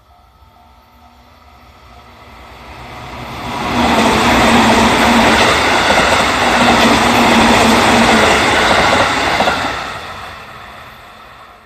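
JR Central 311 series electric multiple unit passing over a level crossing. The noise of its wheels and running gear builds for about three seconds, stays loud for about five and a half seconds as the cars go by, then fades away.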